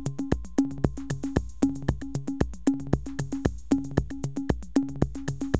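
Background electronic music with a steady drum-machine beat and synthesizer notes.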